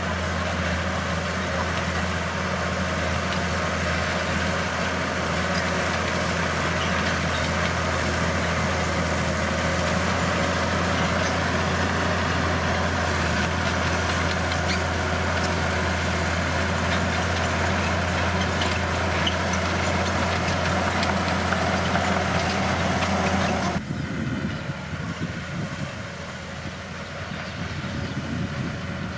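Bulldozer's diesel engine running steadily under a low drone, with scattered small clicks over it. Near the end the sound drops suddenly to a quieter engine sound.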